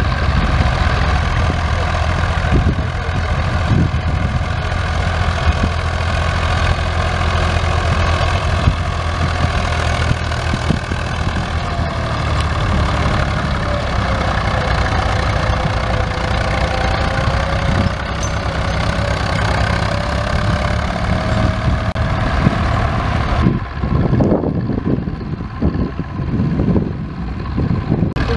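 Tractor diesel engines running steadily while pulling ploughs, with a tone that slowly dips and rises through the middle. Near the end the sound changes abruptly and turns duller and more uneven.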